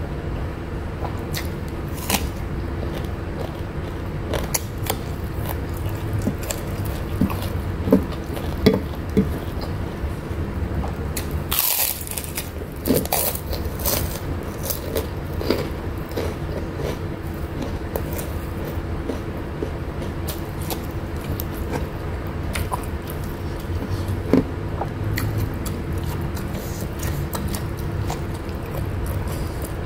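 Close-up eating sounds: chewing and small crunches, with fingers working rice and food on an enamel plate, over a steady low background hum. A brief louder, hissy noise comes about twelve seconds in.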